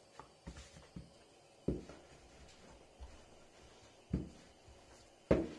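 Wooden rolling pin and hands knocking on a floured countertop while dough is handled and rolled out: a series of dull knocks, three of them louder, at irregular intervals.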